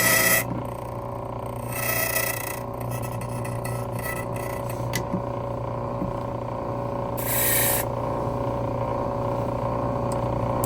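Key duplicating machine running with a steady hum, its cutter grinding a Ford ignition key blank in three short bursts, re-cutting a key that turns tight in the lock.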